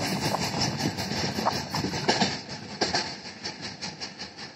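Freight train's wheels clattering rhythmically over the rail joints as the train moves away, the clatter and rumble fading steadily.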